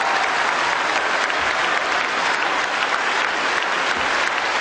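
A theatre audience applauding steadily, dense continuous clapping.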